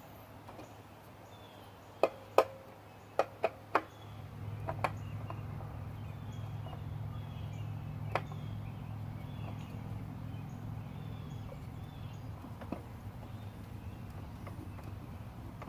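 Sharp clicks and knocks of tools and parts being handled while the new oil filter goes on, several in quick succession about two to four seconds in, with a couple more later. A low steady hum sets in about four seconds in.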